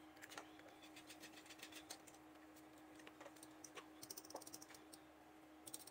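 Near silence with a scatter of faint, light clicks and ticks from a utensil against a saucepan as a cream sauce is stirred, over a faint steady hum.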